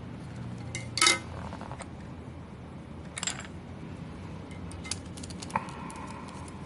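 Small metal parts and tools clinking on a hard work surface: a handful of sharp clinks, the loudest about a second in, and one about five and a half seconds in that rings briefly.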